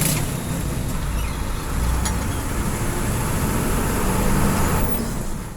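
Steady engine and road noise of a moving intercity bus, with a couple of faint clicks, fading out near the end.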